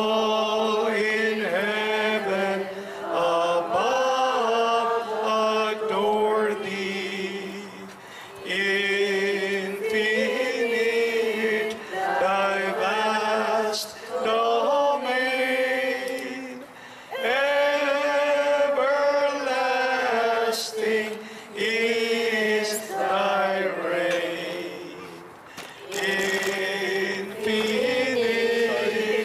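Liturgical chant sung into a microphone: phrases of a few seconds with notes held near a steady pitch, separated by short breaths.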